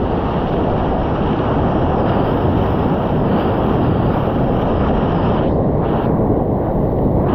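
Big-water whitewater rapids rushing and splashing over the bow of a kayak as it punches through waves, heard close up, with wind buffeting the microphone. The noise is loud and unbroken throughout.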